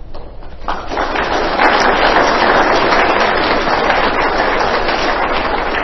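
Audience applauding, starting about a second in and fading near the end.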